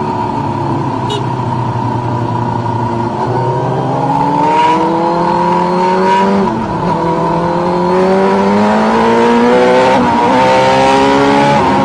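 Sport motorcycle engine heard from on board at speed: steady at first, then revving up hard from about three seconds in, dropping sharply at a gear change a little past halfway and climbing again, with wind rush on the microphone.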